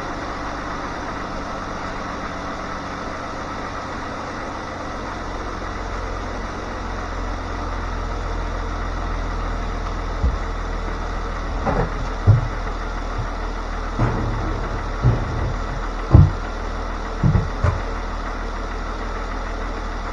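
2013 Jeep Wrangler Rubicon's 3.6-litre V6 idling steadily at about 900 RPM, warming up just after being started on fresh oil. In the second half, a series of short dull thumps sound over the idle.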